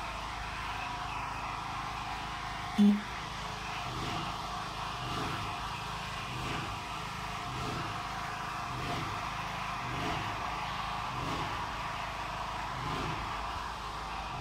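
Steady engine and machinery hum on a building site, with soft footsteps about once a second as someone walks. A brief, loud low tone sounds once, about three seconds in.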